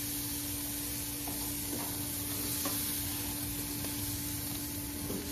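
Red snapper sizzling steadily on a hot grill, over a faint low hum.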